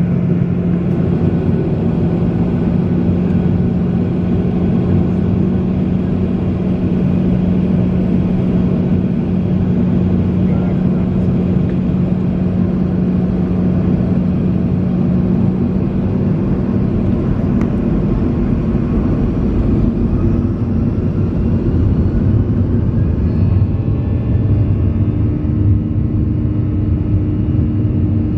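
Cabin noise inside a Boeing 737-800: a steady rumble with a low engine hum. About two-thirds of the way through, the hum shifts to a somewhat higher pitch.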